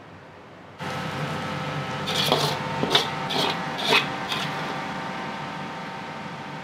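A metal ladle scraping against a wok in about five short strokes, over a steady rushing kitchen noise that comes in suddenly about a second in.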